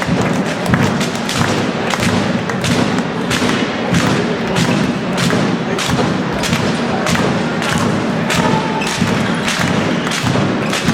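Crowd noise in a packed sports hall, with a steady rhythm of sharp bangs about two to three a second as fans beat time.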